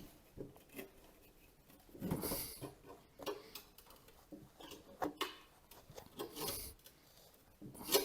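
Scattered light metallic clicks and knocks with scraping as a piece of 10 mm square steel bar is handled and bent to shape against a lawn mower deck. There is a louder scrape about two seconds in and another a little over six seconds in.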